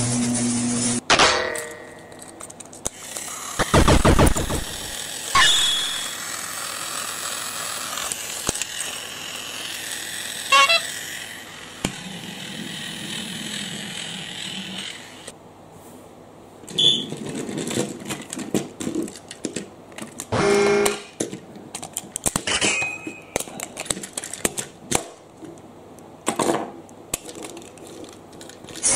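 Plastic toy train engines being handled and taken apart on a table: irregular clicks, knocks and rattles of plastic parts. A steady hum cuts off about a second in.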